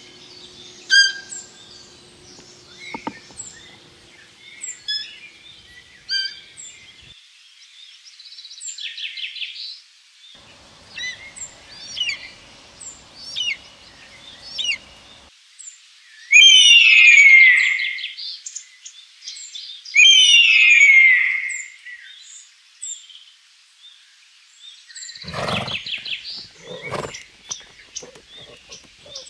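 Wild birds calling and singing: many short high chirps and trills, with two loud calls that slide downward in pitch, each lasting about two seconds. Near the end a lower, rougher animal call joins in.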